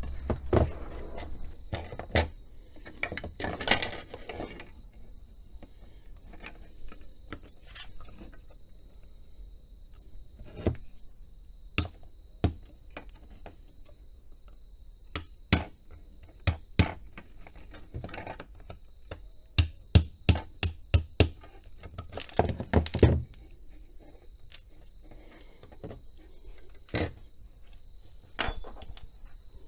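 Hammer tapping a pin punch to drive small metal pins out of a tap timer's housing: scattered sharp taps, with a quick run of about five strikes about two-thirds of the way through, and clatter of handling the parts in between.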